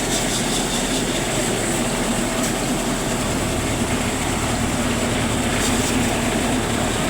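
Rice threshing machine running steadily: a constant hum under a dense rushing noise, with a deeper rumble joining about three seconds in.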